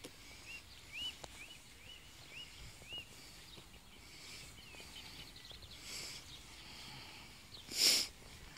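A small bird singing, repeating a short arched whistled note about six times in quick succession, later a faint rapid trill. Near the end comes one brief loud rustle.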